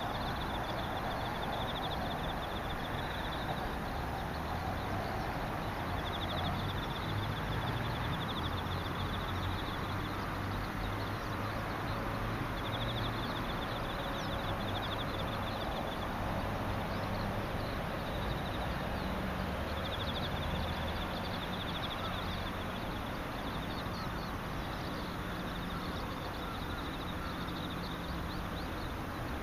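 An insect trilling in finely pulsed, high phrases of about two to three seconds, repeated every few seconds, over a steady outdoor hiss and a low rumble.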